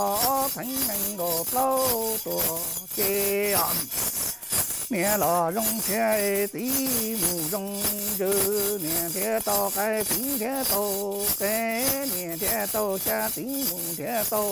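A man chants a ritual prayer in a rising and falling sing-song over a steady held tone, while a shaken Hmong metal ring rattle jingles without a break.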